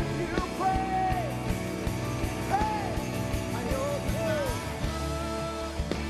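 Live worship band playing, with a sung melody over sustained chords and a steady drum beat.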